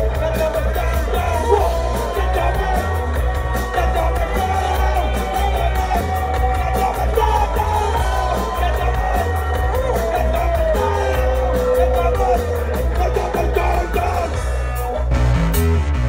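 Live band playing loud, with a heavy bass, a fast steady beat of cymbal strokes and a singer's wavering voice over it.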